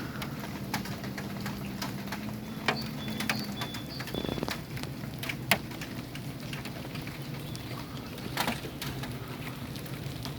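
Scattered drips and pattering of rainwater after a storm, over a steady low hum.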